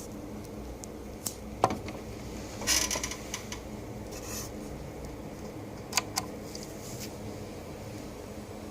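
Western Digital Red Pro 6TB hard drive running with a steady hum, broken by irregular sharp ticks and a short run of rattling clicks about three seconds in, then two quick ticks around six seconds. These are the clicking noises the owner finds strange, which a warranty-replacement drive makes just the same.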